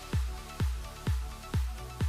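Electronic dance music with a steady kick drum on every beat, about two beats a second, over sustained synth chords.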